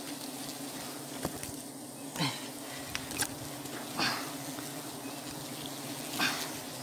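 Honeybees buzzing in a steady hum around a freshly cut wild honeycomb, with a few short rustles and knocks from the comb and plastic bag being handled.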